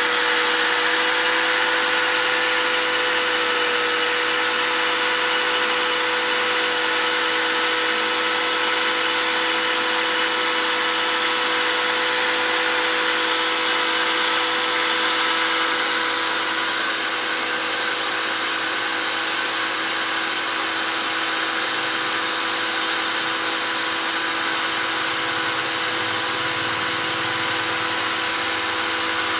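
Electric motor of a car pressure washer driving a homemade airless sprayer, running steadily with a constant whine and a broad hiss; it eases off slightly a little past halfway.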